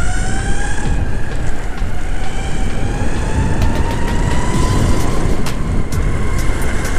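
Exway Atlas four-wheel-drive electric skateboard's motors whining under power as the board accelerates. The whine climbs slowly in pitch over the first few seconds, then holds steady over a loud, steady low rumble.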